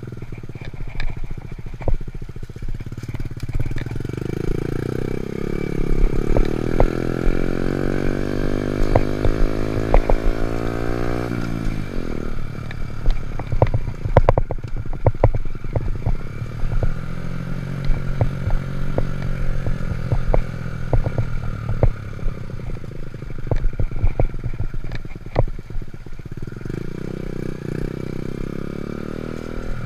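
Honda Monkey Z50 minibike's small single-cylinder engine running under load. It revs up steadily for several seconds, drops sharply about twelve seconds in, then picks up again, with light clattering ticks throughout.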